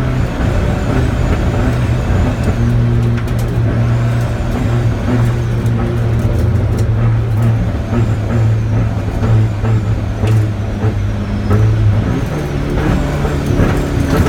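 Car engine running at fairly steady revs, heard from on board, with scattered rattles and clicks. The tone dips briefly and shifts about twelve seconds in.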